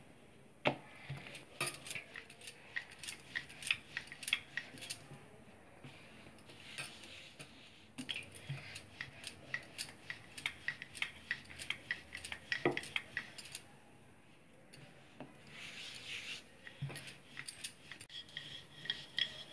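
Wooden rolling pin working layered dough on a granite counter: a run of irregular light clicks and taps.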